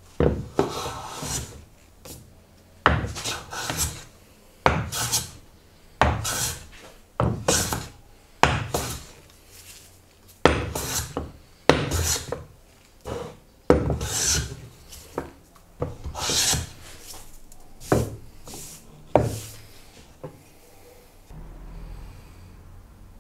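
Hand plane shaving the face of an oak board: about fifteen strokes, roughly one a second, each starting sharply and fading over about a second. The strokes stop about twenty seconds in.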